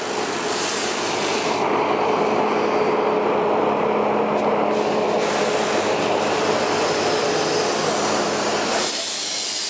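Metre-gauge steam locomotive moving slowly on its own, a steady clanking hiss of its running gear and wheels with a faint low hum underneath, easing off about nine seconds in as it comes up to the coach for coupling.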